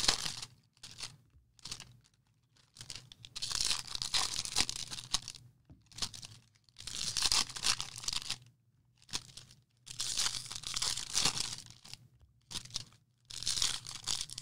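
Foil trading-card pack wrappers being torn open and crinkled by hand, in repeated crackling bursts every two to three seconds with short quiet gaps between.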